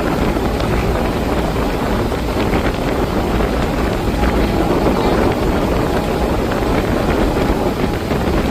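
Wind buffeting the microphone and water rushing alongside a moving ferry, over a steady low rumble.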